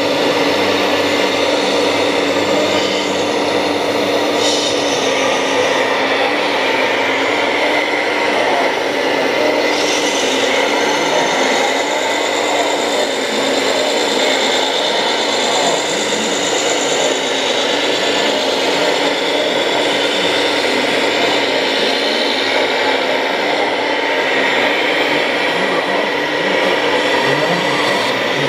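Radio-controlled model Liebherr 946 excavator's electric hydraulic pump running steadily as the machine digs and loads soil, its hum stepping up and down in pitch as the boom and bucket move.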